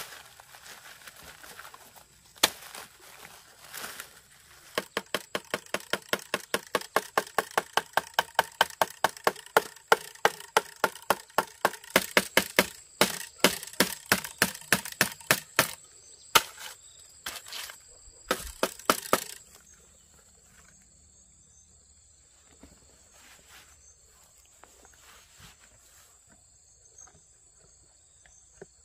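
A fast, even run of sharp strikes, about four a second, lasting about ten seconds, then a few slower, scattered strikes before they stop. After that only a faint steady high hum remains.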